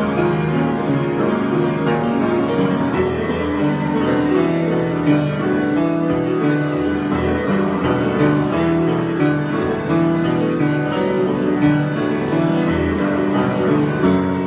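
Solo piano improvisation, with chords and melody notes played continuously and overlapping as they sustain.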